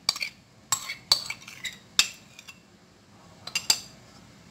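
Kitchen utensils clinking against bowls: a few sharp, separate clinks at uneven intervals, with a quick pair near the end.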